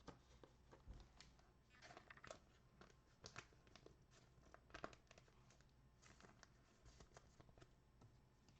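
Faint rustling, crinkling and clicking as trading cards and foil pack wrappers are handled.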